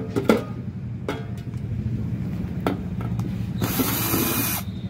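Cordless drill-driver backing a screw out of a water heater's cover plate, running in one burst of about a second near the end. A few sharp clicks come before it.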